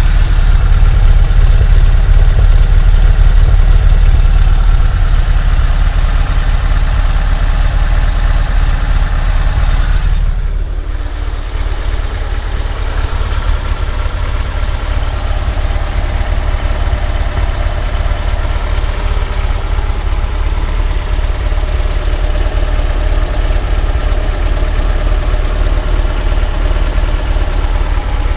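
VW T25's air-cooled 1600 CT flat-four engine idling at operating temperature after a six-mile run, making the noise its owner hears only when it is warm. It runs steadily, then drops a little in level about ten seconds in and settles to a steady idle.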